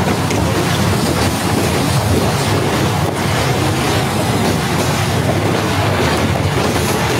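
Blizzard wind buffeting the phone's microphone: a loud, steady, deep rushing noise.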